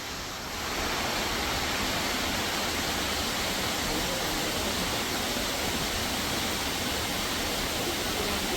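Steady rush of falling water from a waterfall or fast stream, growing a little louder about half a second in and then holding even.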